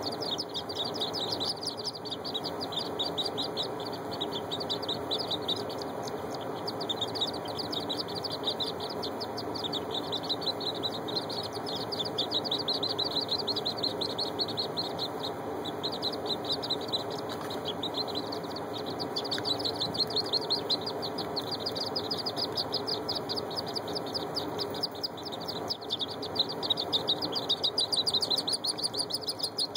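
Wood duck and hooded merganser ducklings peeping without a break, a dense chorus of short, high, falling peeps, several each second, that eases briefly now and then.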